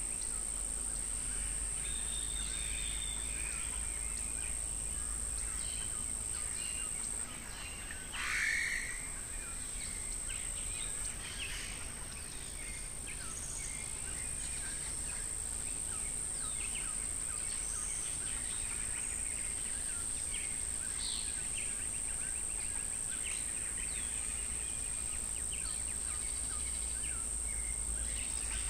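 Natural outdoor ambience: a steady high-pitched insect drone with many short bird calls over it, and one louder bird call about eight seconds in.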